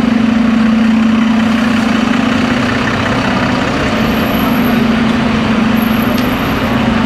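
Busy city street traffic, with a large vehicle's engine idling close by as a steady low hum.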